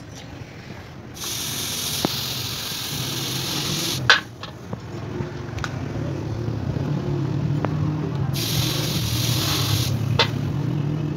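Red-hot axe edge being quenched, sizzling with a loud steady hiss in two spells of about three and two seconds. Each spell ends with a sharp metal clank, over a steady low hum.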